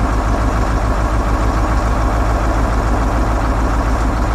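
A 1979 Chevrolet C70 grain truck's Detroit Diesel 8.2-litre V8 turbo diesel idling steadily, with an even low pulse.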